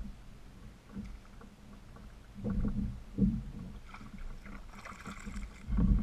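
Small waves slapping against the hull of a fishing kayak, with a few dull thumps, the loudest near the end.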